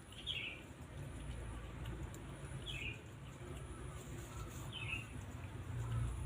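A small bird chirping three times, short falling chirps about two seconds apart, over a steady low rumble.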